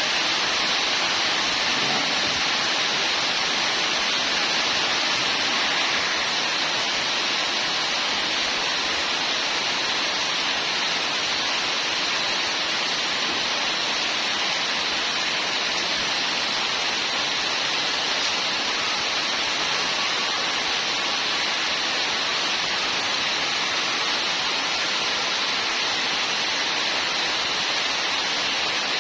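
A steady, even hiss, strongest in the upper range, without pitch, rhythm or knocks.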